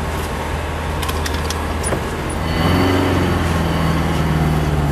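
Truck engine running on wood gas from a homemade gasifier, heard from inside the cab while driving. It gets louder with a slight rise in pitch about two and a half seconds in.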